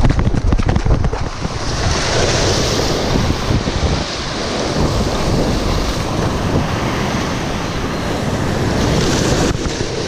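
Wind buffeting an action camera's microphone over the wash of breaking shore waves and foaming whitewater. A louder hiss of surging water comes about two seconds in and again near the end.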